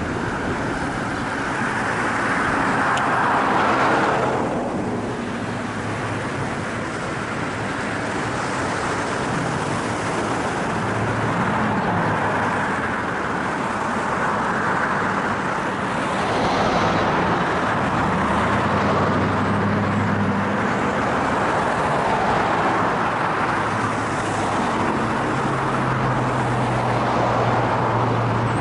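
Cars passing on a busy road: a steady rush of tyre and engine noise that swells and fades as each one goes by, with a low engine hum coming and going several times.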